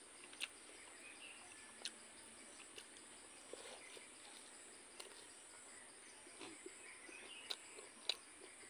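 Steady high drone of insects, with a few faint sharp clicks and smacks of eating by hand: chewing and fingers working rice and blood sausage on a steel plate.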